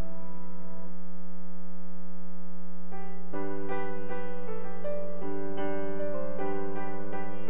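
Grand piano played solo: a held chord fades out over the first second, then about three seconds in a new phrase of notes and chords begins. A steady low hum runs underneath.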